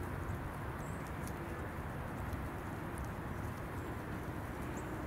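Canada geese grazing close by, their bills plucking grass in a few faint clicks over a steady low rumble.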